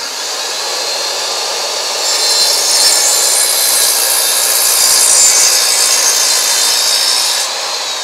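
Mid-1960s Craftsman 7½-inch circular saw running and ripping through a board. It gets louder and harsher while the blade is in the wood, from about two seconds in, then eases near the end as the blade comes clear and spins free.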